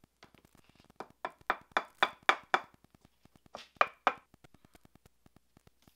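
Sharp wooden taps on a wooden molding flask packed with sand: a quick run of knocks, about four a second, then a few more about a second later, with fainter ticks between.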